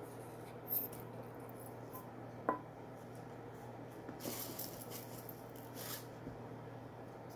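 Quiet kitchen handling sounds over a steady low hum: a small tap, then one sharp ringing clink of a steel bowl against a glass mixing bowl about two and a half seconds in, and brief rustling scrapes later as ground spice is tipped out.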